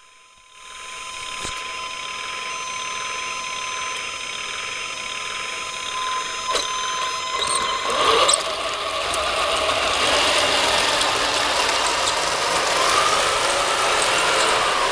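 1/16 scale Heng Long RC tracked model on a sound-and-control board: a steady electronic engine hum at first, then from about eight seconds in louder and fuller with a pitch that rises and falls as the model drives off, its gear motors whining.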